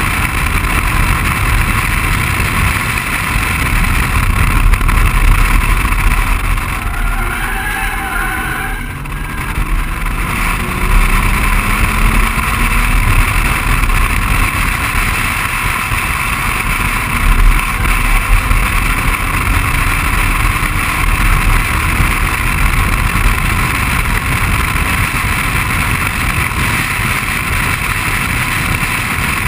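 BMW 135i's turbocharged straight-six engine under hard acceleration, its note rising in pitch twice through the gears after a brief lift about eight seconds in. Heavy wind rush on the outside-mounted camera lies over it.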